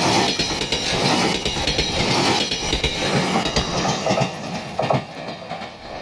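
A train running past close by, its wheels clattering over the rail joints, the sound dropping away near the end.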